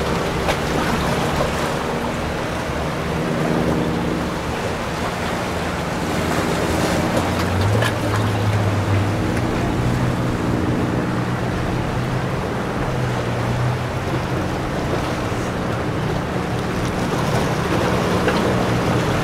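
Motorboat engines running, their hum shifting in pitch now and then, over the rush of waves and wind noise on the microphone.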